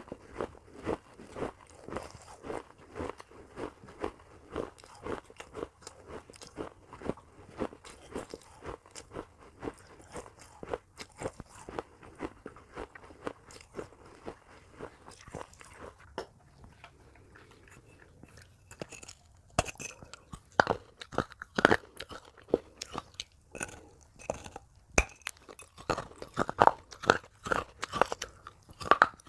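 Crunching and chewing of pieces of baked clay pot, close up, in steady bites about two a second. After a short lull past the middle come a few sharper, louder cracking bites, then steady crunching resumes near the end.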